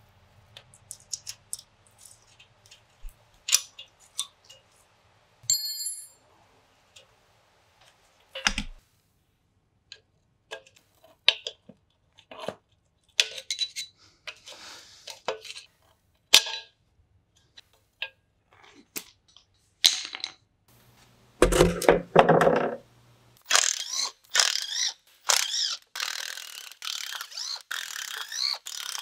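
Metal hand tools clinking and scraping on old brake lines and drum brake hardware, with a short metallic ring about five seconds in. Over the last few seconds a cordless impact driver hammers rapidly as it backs out the differential cover bolts.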